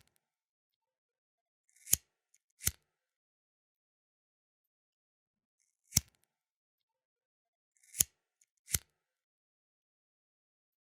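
Flint lighter being struck: five sharp, short clicks. Two of them come as close pairs under a second apart, with a single click between the pairs.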